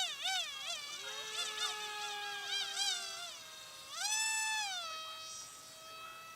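Electric motor of a radio-controlled foam model jet whining in flight, its pitch wavering rapidly up and down, then rising sharply about four seconds in and settling back as it fades. A second, steadier whine sounds alongside it for a couple of seconds near the start.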